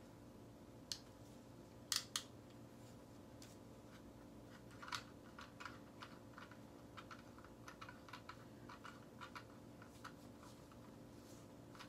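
Small plastic clicks and taps as the parts of a dashboard mount are handled and fitted together. A few sharp clicks come about one to two seconds in, then a run of light, irregular clicking from about five seconds on.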